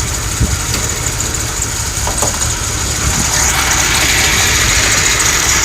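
Volkswagen Jetta engine idling rough and uneven, with a hiss that grows louder a little past halfway. The rough idle is the sign of a misfire, and the car has an exhaust leak.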